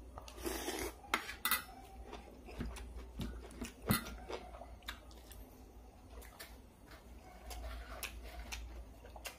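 Eating sounds: a man chewing a mouthful, with scattered clicks and clinks against a metal serving tray and a spoon. The sharpest clink comes about four seconds in, as food is scooped from the tray.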